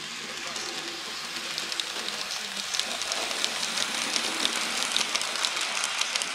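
Model steam locomotive and its coaches running along model railway track through a set of points. The rolling noise is steady, with rapid irregular clicks as the wheels cross rail joints and switch frogs, and it grows a little louder as the train comes by.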